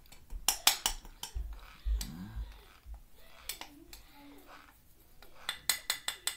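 Sharp clinks and taps against a glass measuring cup as cornstarch is dug out of it. They come in quick clusters about half a second in and again near the end, with a few dull handling thumps in between.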